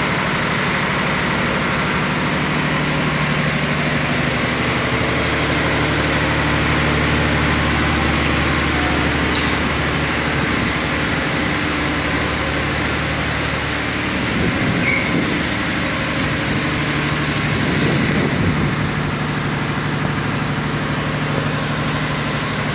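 Diesel engine of a Wirtgen 1000C cold milling machine running steadily at a constant speed, with small swells in level about two thirds of the way through.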